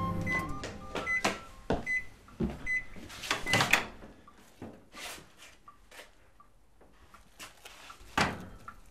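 Countertop microwave oven beeping several times, short high beeps a little under a second apart, to signal that it has finished, followed by knocks and clunks as the door is opened and a bowl is handled.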